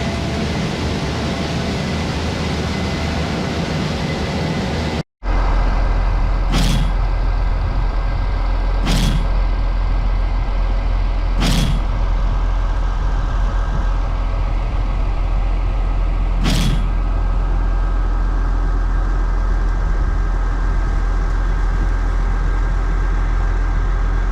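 A large farm machine's engine running steadily. After a break about five seconds in, it runs on with a heavier low rumble, and four short sharp clicks are heard in the middle part.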